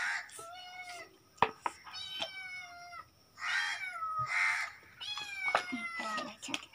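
A cat meowing repeatedly: several drawn-out calls, each sliding down in pitch, with a few sharp clicks between them.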